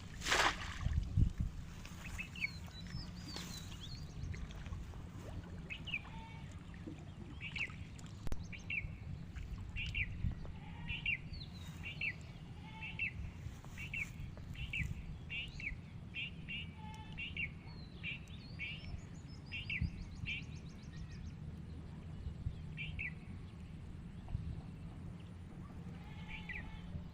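A bird calling over and over in short, high chirps, about one or two a second, over a steady low rumble.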